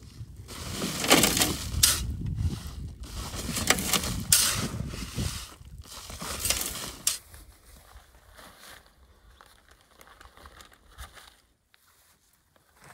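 A shovel digging into sand-and-gravel mix in a bulk bag and tipping it into a wheelbarrow: gritty scrapes and pours, several strokes in the first seven seconds, then much quieter.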